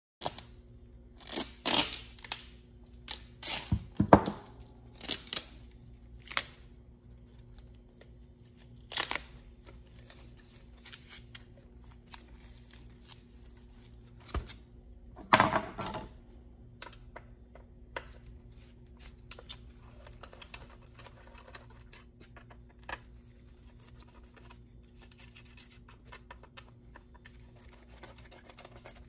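Hand-tool work on a car radio unit: a string of short scrapes and rattles, most of them in the first half, then quieter scratching, over a steady low hum. This is likely the unit's six bolts being taken out with a screwdriver.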